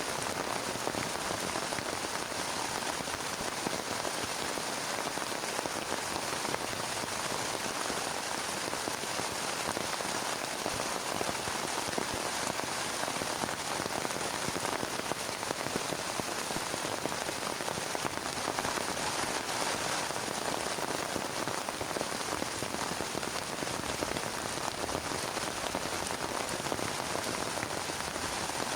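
Heavy rain falling steadily on a plastic tarp: a dense, even patter of countless drops with no let-up.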